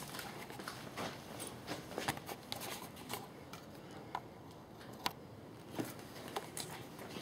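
Faint, scattered small clicks and light rustling, like parts or wires being handled, with a few sharper ticks about two and five seconds in.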